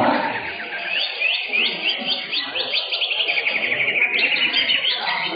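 Songbirds singing: a string of quick rising whistled notes, then a fast run of repeated notes, over a background of other birds chattering.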